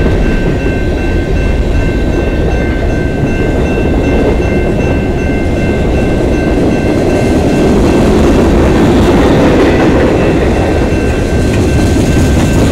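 Freight train cars, tank cars and autoracks, rolling past: a steady rumble and rattle of wheels on the rails that grows a little louder about eight seconds in. A steady high ringing tone sounds over it and stops about halfway through.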